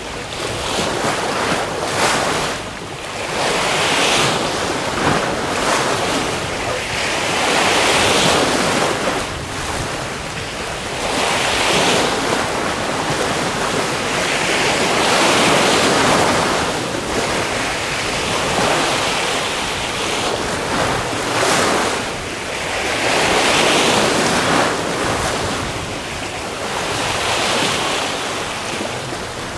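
Sea waves breaking and washing up the shore, the surf swelling louder every three to four seconds and ebbing between.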